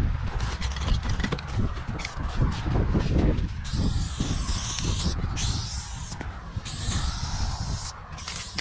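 Aerosol spray-paint can hissing in long bursts with short breaks as paint goes onto a concrete wall, starting about halfway through. Under it runs a steady low rumble.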